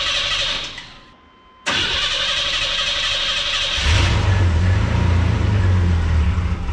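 Chevrolet S10 pickup's carbureted engine being cranked on the starter while the carburetor is still dry. The first crank stops about a second in, a second crank starts shortly after, and the engine catches about four seconds in and keeps running steadily.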